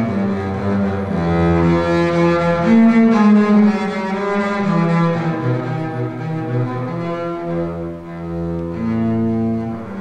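Solo double bass played with the bow: slow, sustained notes, each held for a second or more, moving from one pitch to the next.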